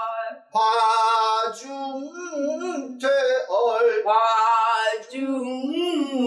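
A woman singing pansori: a drawn-out vocal line that bends and wavers in pitch, with a short break for breath about half a second in.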